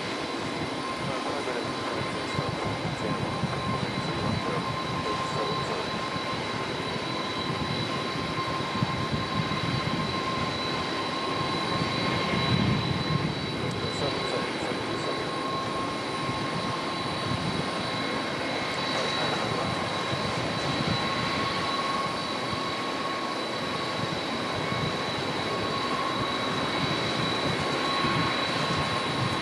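Steady airport apron noise of jet airliners' engines, heard through a faulty camcorder microphone that lays a constant electrical hum over everything.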